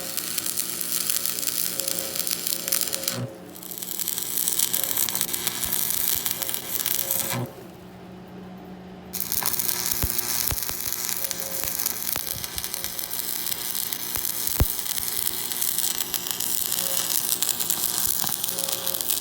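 Electric welding arc crackling and sizzling steadily as gussets are welded to a steel frame. It stops briefly about three seconds in, and again for about a second and a half near the eight-second mark, between beads.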